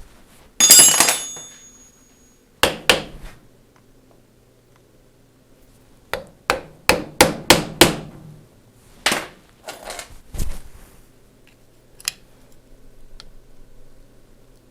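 Hammer striking metal to free a seized, rusty screw in an old starter motor: tapping shocks the threads loose. A loud ringing blow about half a second in, another near three seconds, then a quick run of about six taps and a few scattered ones.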